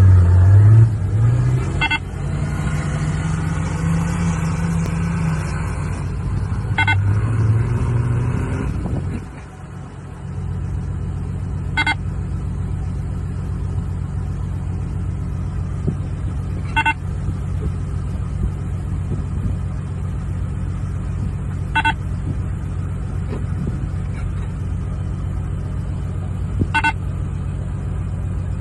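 Nissan Patrol Y60's engine revving with rising and falling pitch, dropping away after about nine seconds and then running steadily. A short high beep sounds about every five seconds.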